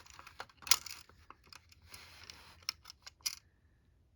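Handling noise from plastic smoke alarm units being moved about: a few sharp clicks and knocks with a short stretch of rustling in the middle.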